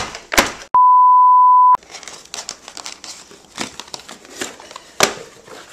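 A steady, single-pitched beep about a second long, edited in over the sound track like a censor bleep, starting just under a second in. After it, cardboard and plastic packaging rustle and crinkle, with a few sharp knocks, as a shipping box is handled and the drive enclosure is worked out of it.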